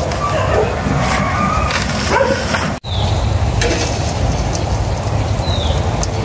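A dog whimpering in short, broken whines. About three seconds in there is a sudden break, followed by a steady low rumble.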